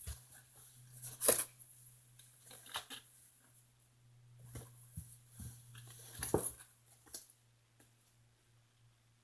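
Kittens moving about in a cat house: scattered short scratching and rustling noises, loudest about a second in and again after six seconds, over a steady low hum.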